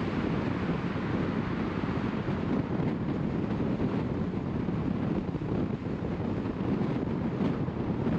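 Steady road noise of a moving car: an even, deep rush of tyres on tarmac and wind, with no distinct events.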